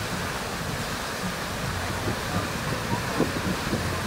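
Steady rushing of pumped water pouring over the artificial standing wave of a surf pool.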